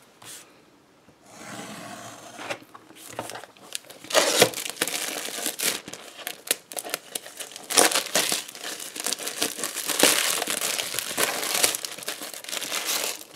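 Clear plastic wrapping crinkling and tearing as it is cut open and pulled off a packet of paper sheets, starting about a second in. The crinkling has many sharp crackles.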